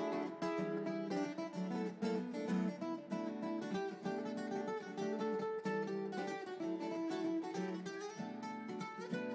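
Solo acoustic guitar playing fast, busy runs of plucked and strummed notes.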